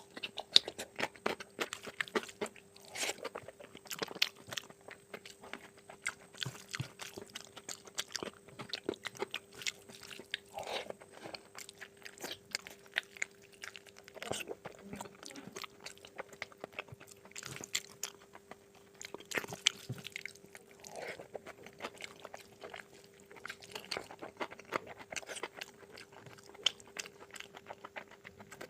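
Close-up chewing and biting of mutton curry with rice: a dense, irregular run of wet mouth clicks and smacks, over a faint steady hum.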